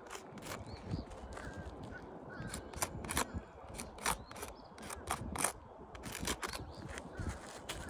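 Irregular scraping and clicking of hands and tools working on asphalt roof shingles.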